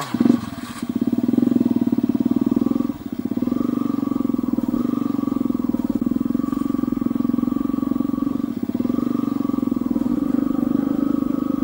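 Small vehicle engine running steadily while moving along a rough dirt track, with a brief dip about three seconds in.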